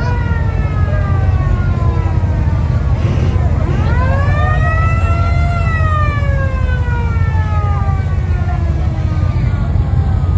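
A siren wailing: its pitch falls slowly, winds up for about a second and a half near the middle, then falls away again over several seconds. Under it, the engines of slow-moving cars keep up a steady low running sound.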